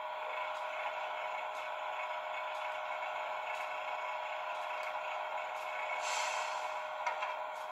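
Sound decoder in a model Ale 803 electric railcar playing its standing-still sounds through the model's small speaker: a steady hum with one constant tone and a faint click about once a second. About six seconds in comes a short hiss of released air.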